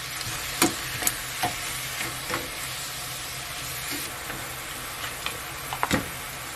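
Marinated beef short ribs sizzling gently in their soy-based marinade in a frying pan over low heat. Scattered sharp clicks sound as the pieces are turned over with tongs, the loudest about six seconds in.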